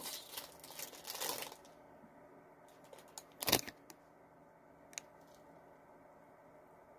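Plastic snack wrapper crinkling for about a second and a half as the Rice Krispie Treat is handled. After that it is mostly quiet, with one short louder noise about three and a half seconds in and a faint click at five seconds.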